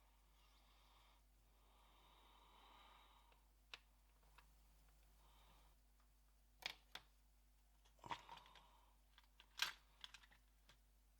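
Faint sharp clicks and small metallic taps of watchmaker's tools and parts on a Poljot 2612.1 watch movement being disassembled, scattered and irregular in the second half. Before them come a few soft hissing puffs.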